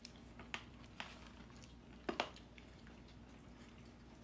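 Candy canes being eaten: a handful of faint clicks and crunches of hard candy, over a low steady hum.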